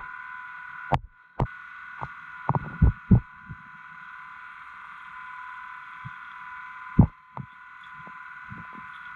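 Raw underwater action-camera audio: a steady hiss with two high whining tones, broken by short, deep, muffled thumps, a cluster around the first three seconds and a loud one about seven seconds in.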